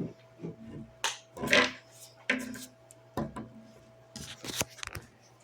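Handling noise as a camera is set down: a series of irregular knocks, bumps and clicks, with a faint steady hum underneath.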